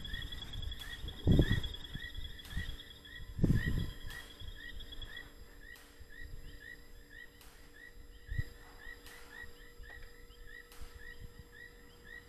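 Night chorus of frogs and insects: a short chirp repeating about twice a second and a high, steady trill that stops about five seconds in. Over it come a few low thumps and rustles, the loudest about one and a half and three and a half seconds in.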